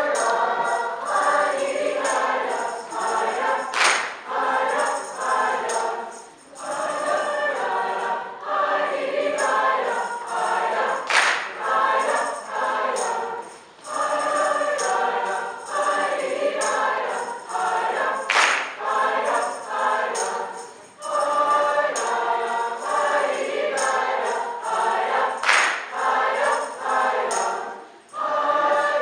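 Large mixed school choir singing a Christmas song in several parts, with a short bright shake or hiss recurring about every seven seconds.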